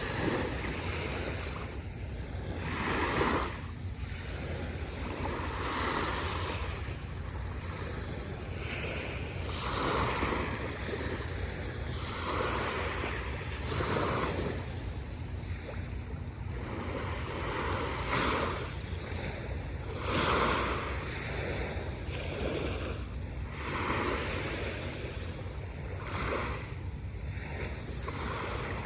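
Small waves breaking and washing up a sandy beach, a hissing surge about every two seconds, over a steady low rumble of wind on the microphone.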